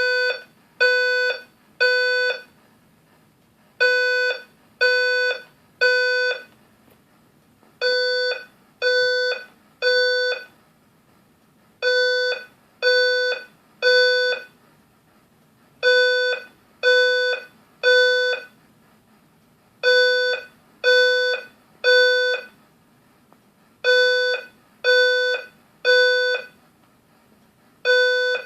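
Building fire alarm horns sounding the evacuation signal in the temporal-three pattern: three half-second beeps on one pitched tone, then a pause, repeating every four seconds.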